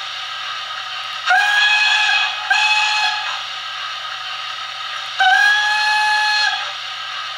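A DCC sound decoder (Zimo MX644 with a YouChoos Great Central J11 sound file) plays a steam locomotive whistle through a 28 mm speaker in a model's tender. There are three blasts, two short ones close together and then a longer one, each sliding up slightly in pitch as it starts, over a steady hiss of steam.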